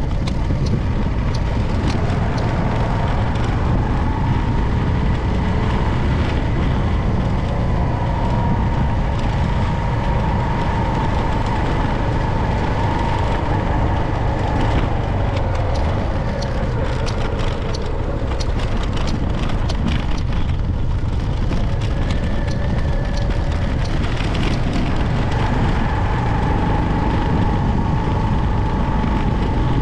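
A vehicle on the move: a steady low rumble with a faint whine that drifts slightly in pitch.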